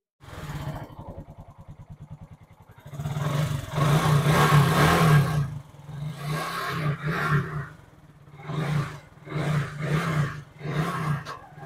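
Hero motorcycle's single-cylinder four-stroke engine running, idling with even firing pulses at first. From about three seconds in it is revved hard, then blipped repeatedly with the throttle. This is a test run after a new clutch plate set, clutch hub and centre and fresh engine oil were fitted.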